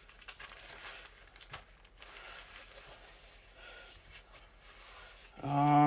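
Packaging and accessory parts being handled, with faint rustling, crinkling and a few small clicks. Near the end there is a short, loud, steady pitched vocal sound, a hum or whine.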